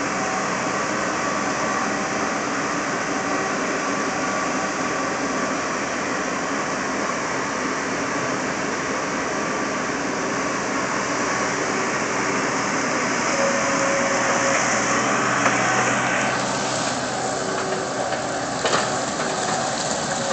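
Skid steer loader's engine running steadily under work, with the pitch and character shifting about three quarters of the way through and a brief knock near the end.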